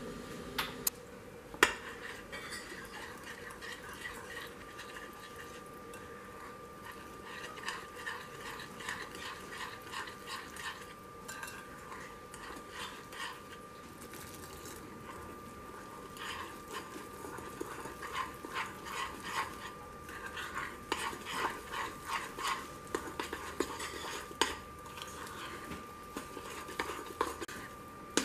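Metal spoon stirring chocolate cake batter in a ceramic bowl, clinking and scraping against the sides in quick runs of taps.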